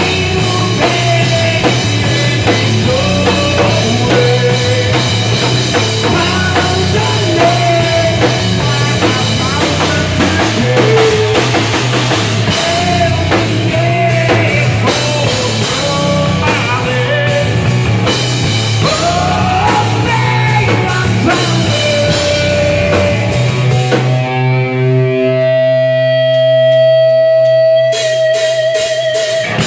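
Live rock band playing loud: drum kit, electric guitar and singing. About 24 seconds in, the drums drop out under a long held note that wavers near the end, then the full band crashes back in.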